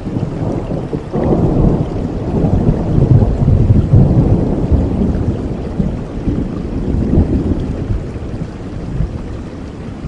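Steady heavy rain with a long, low roll of thunder that swells about a second in, is loudest a few seconds later and slowly fades away near the end.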